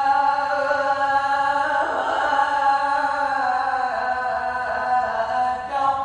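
A male qari reciting the Quran in the melodic, drawn-out tajwid style, holding long notes. A new syllable comes in about two seconds in, the pitch steps down near four seconds, and a fresh phrase begins just before the end.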